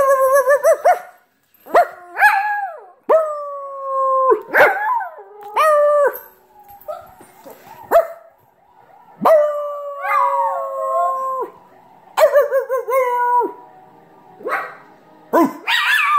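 Small white dog howling: a string of drawn-out, pitched howls, some held steady for a second or more and others sliding up and down, broken by shorter yelps.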